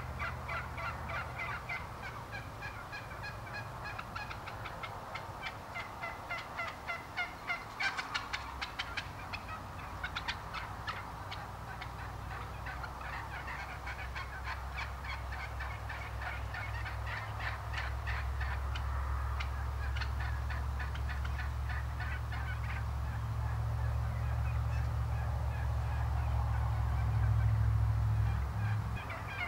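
A flock of wild turkeys calling, many overlapping rapid calls, loudest in a run about eight seconds in. A low steady rumble grows louder through the second half.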